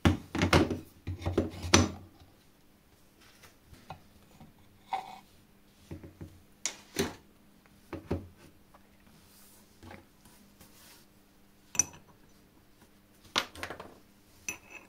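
Workshop parts being handled: a plastic saw handle and a steel tube rubbed and knocked together in a quick cluster at the start, then a scatter of separate clinks and taps as metal parts are set down on the bench, the brass gear among them near the end.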